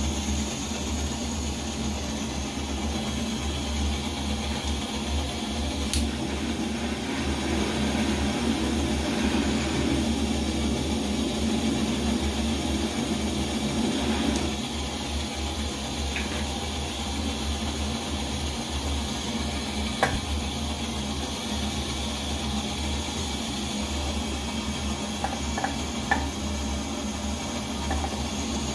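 Coleman 533 dual-fuel pressurized stove burning with a steady rushing roar, its flame still yellow while the burner warms up. The sound is louder for several seconds near the middle, and a few sharp clicks come through.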